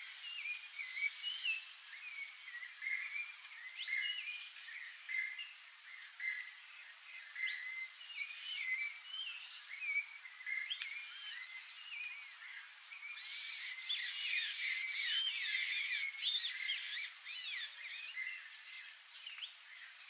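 Several songbirds chirping and whistling in short, quick, overlapping notes, busiest in the second half.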